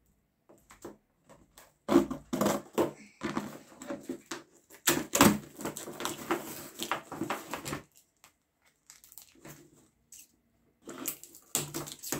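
Scissors cutting into and tearing open a cardboard box and its packing tape, in a string of irregular rasps and rips. A quiet spell of about three seconds comes near the end before the ripping starts again.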